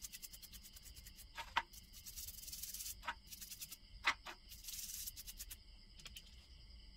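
Toothbrush scrubbing small chainsaw carburetor parts in a metal tin, in quick back-and-forth strokes, with a few sharp clinks of the parts against the tin. The scrubbing stops about five and a half seconds in.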